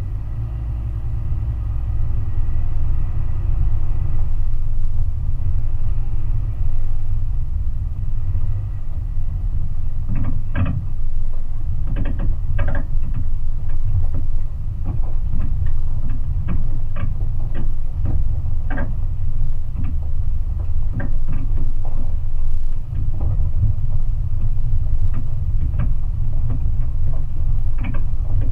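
An off-road vehicle driving slowly over a rough, rocky dirt track, heard from a hood-mounted camera: a heavy low rumble, with scattered knocks and clicks from about ten seconds in.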